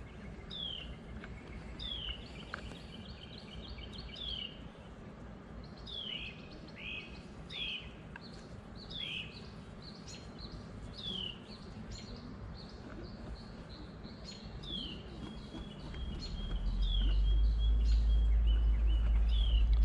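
Birdsong: a bird repeating down-slurred whistled notes about once a second, with quick runs of short, higher notes between them. About three-quarters of the way through, a low rumble comes in and becomes the loudest sound.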